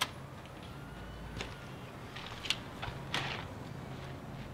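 Quiet ambience with a steady low hum and a few scattered sharp clicks and knocks, about four in all.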